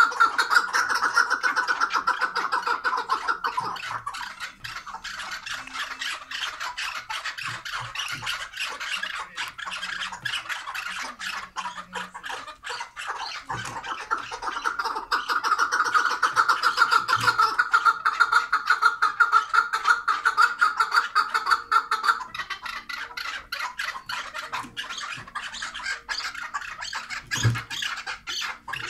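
Chukar partridges calling in long, rapid runs of clucking 'chuk' notes. The calling is louder at the start and again in a long bout in the middle.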